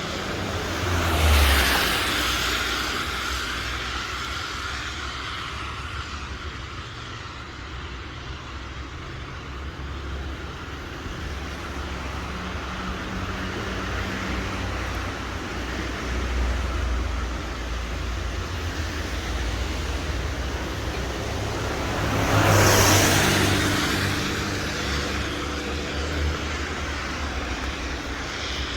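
Steady road traffic noise, with a vehicle passing close about a second and a half in and another about three-quarters of the way through, each swelling and fading.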